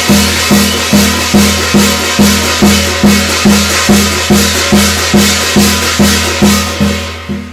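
Korean shamanic ritual music: a drum beaten in an even pulse of about two strokes a second, with a continuous wash of cymbals above it. The playing dies away near the end.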